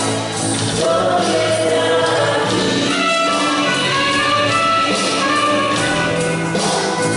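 Gospel-style worship music with a choir singing over instruments.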